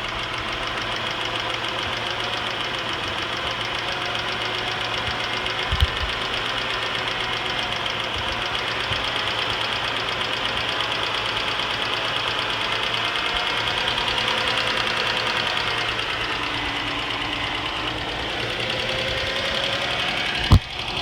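2006 Cadillac CTS's 3.6-litre LY7 V6 running with a rapid, even ticking that keeps pace with engine speed. The owner links the tick to a recent timing chain replacement. A single sharp knock sounds near the end.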